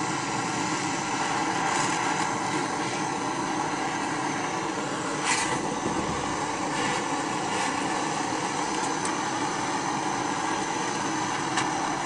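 Portable butane cartridge gas torch burning with a steady hiss as it heats a steel chainsaw recoil-starter spring. A couple of short metal clicks come from the spring being handled, about five seconds in and near the end.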